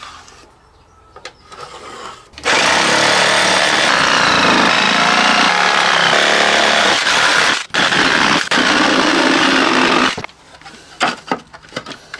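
Electric jigsaw cutting through a wooden door, running steadily for about seven seconds with a brief stop partway through. A few light knocks and taps follow after it stops.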